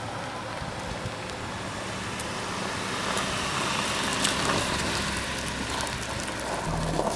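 Honda Element driving up and passing close, its engine and tyre noise growing louder toward the middle, then settling into a low steady engine hum near the end as it pulls in to the curb.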